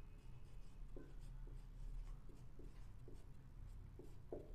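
Faint, irregular strokes of handwriting, about seven short scratches, over a low steady hum.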